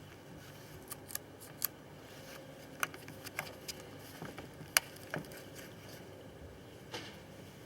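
A chainsaw being handled with its engine off as its chain and quick tensioner are worked by hand: scattered sharp metal clicks and light knocks, the loudest a little past the middle.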